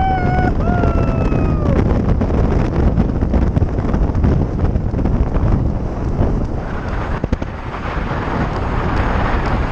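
Wind rumbling on the microphone of a camera on a fast-moving bicycle, with traffic around it. In the first second and a half there is a short wavering tone followed by a falling one.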